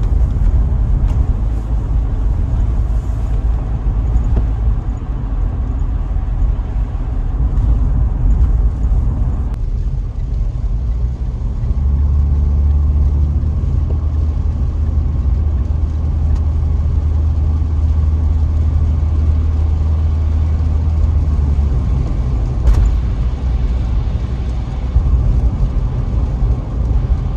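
Road and engine noise inside the cabin of a Mitsubishi Pajero Sport 2 fitted with fresh sound insulation, driving at about 60 km/h. It is a steady low rumble, and a deeper drone swells in from about twelve seconds in and fades about ten seconds later.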